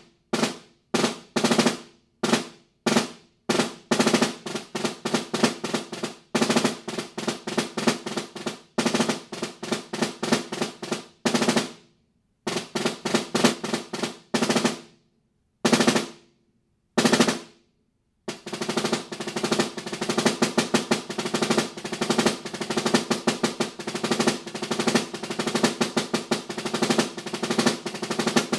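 Concert snare drum played with sticks in an orchestral excerpt. A few single strokes open it, then come fast rhythmic figures and rolls broken by short rests and two lone accents. Over the last ten seconds it settles into a long passage of rapid strokes with regular accents.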